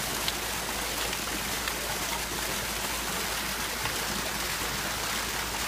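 Jumping-jet water fountain: thin arcs of water landing in a shallow pool, a steady splashing and trickling with a few small splats.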